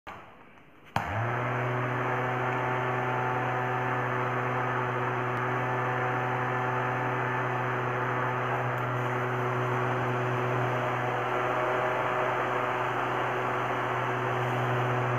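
A rocker switch clicks on about a second in, and the small electric motor of a homemade cardboard mini air cooler spins up within a moment and runs at a steady pitch, humming, with the fan's rush of air.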